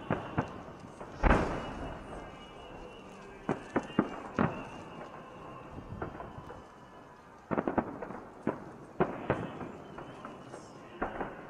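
Fireworks salute bursting over the city: a dozen or so sharp booms at irregular intervals, some in quick pairs. The loudest comes about a second in and is followed by a long rolling echo.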